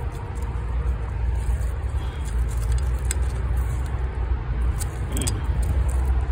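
Steady low rumble, with a few light clicks and rustles about three and five seconds in.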